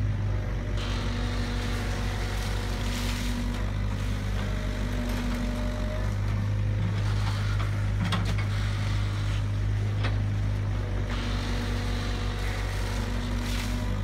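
Tracked hydraulic excavator's diesel engine running steadily, with a higher hydraulic whine that comes and goes as the boom and bucket dig in a muddy ditch, and an occasional light knock.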